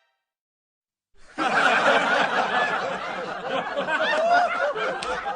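Laugh-track sound effect: a crowd of people laughing together, many voices overlapping, starting after about a second of silence and fading out near the end.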